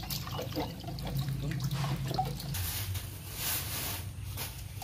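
Water dripping and trickling from freshly washed vegetables draining in a plastic colander, with small scattered clicks and a low steady hum underneath.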